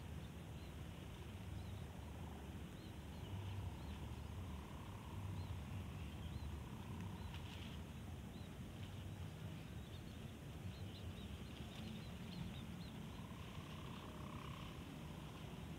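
Outdoor rural ambience: a steady low rumble of wind on the microphone, with faint bird chirps throughout.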